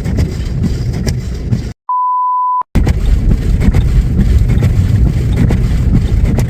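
Steady low rumble of a truck driving through deep snow. About two seconds in, all of it cuts out for just under a second and a single pure beep tone plays in its place, an edited-in bleep, before the rumble returns.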